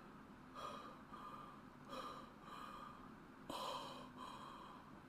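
A man breathing hard, about six faint, heavy breaths in and out under a second apart.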